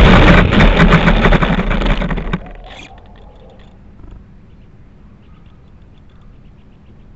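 Onboard microphone of an RC model Cessna: loud rushing and rattling as the plane runs over rough dirt and grass on landing, stopping abruptly about two and a half seconds in. Then it is quiet apart from faint, rapid high ticking chirps.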